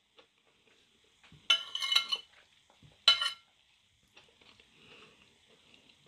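A metal spoon clinking and scraping against a ceramic plate as rice is scooped up. There is a cluster of ringing clinks about a second and a half in, then another short clink about three seconds in.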